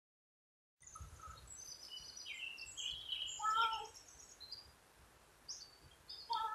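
Small songbirds chirping and twittering. Twice, about three seconds in and again near the end, a crow gives a louder, lower cat-like call. The birds start after about a second of silence.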